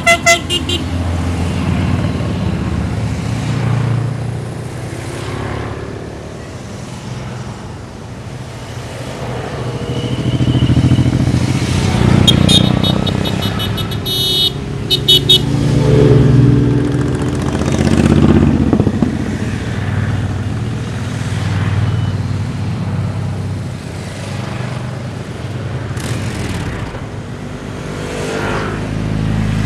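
A procession of motorcycles riding past one after another, engine sound swelling and fading as each bike goes by. About halfway through, a horn beeps in a quick run of short toots.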